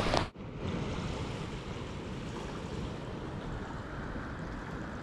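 Ocean surf washing steadily on the shore, with wind rumbling on the microphone. A louder rush cuts off abruptly just after the start, leaving the softer, even wash.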